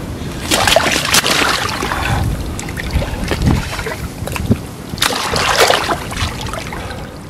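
Lake water splashing and sloshing as a large carp is lowered from an angler's hands and released, with two louder bouts of splashing, one about half a second in and another about five seconds in.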